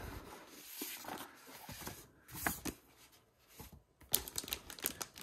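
Soft paper rustling as a printed game booklet is handled and put down, then crisp crinkling of the clear plastic bag around the game's mounted boards near the end.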